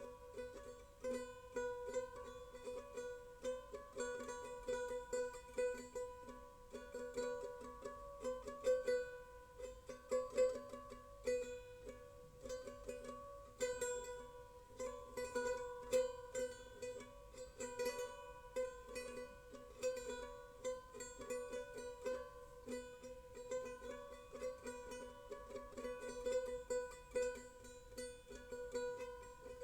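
Background music of plucked strings, a light ukulele-like tune of short, quickly repeating notes.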